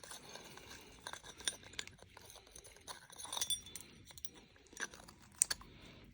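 Faint, scattered clicks and clinks of the small parts of a CNC Q2 rotary tattoo pen being handled, as the needle bar section is fitted back into the body and threaded together.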